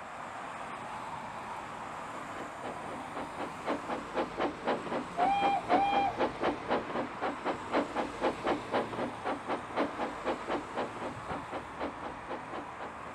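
Steam locomotive chuffing past at about three beats a second, growing louder and then fading away, over a steady hiss. Two short steam-whistle toots sound about five seconds in.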